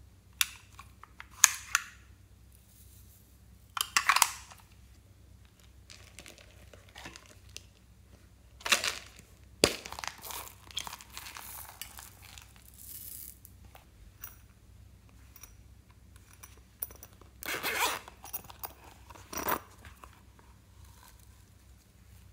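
Beads, glitter and cut plastic straw pieces being tipped from small plastic containers into glass dishes, with the containers handled and opened: irregular bursts of rattling, clinking and rustling separated by quiet gaps.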